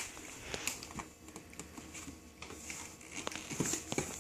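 Light crinkling of snack packaging being handled, with scattered small clicks and taps.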